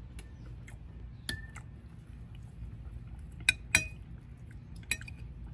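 Kitchenware clinking: a few sharp knocks of utensils, dishes or pots being handled, some ringing briefly. One comes about a second in, two close together past the middle, and one near the end, over a low steady hum.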